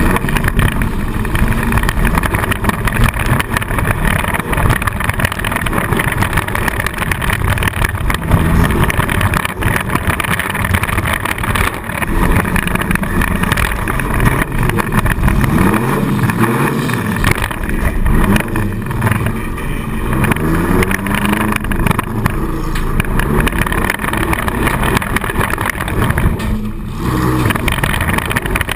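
Four-cylinder demolition derby car's engine heard from inside the car, revving up and down repeatedly under hard driving.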